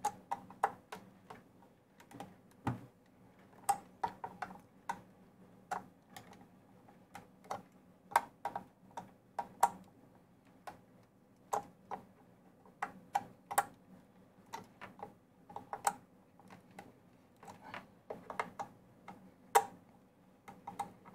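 Light, irregular clicks and taps of small plastic model parts being handled and fitted together, about one or two a second.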